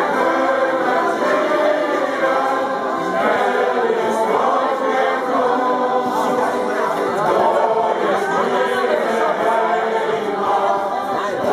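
A sailors' choir singing a shanty, many voices together at a steady level.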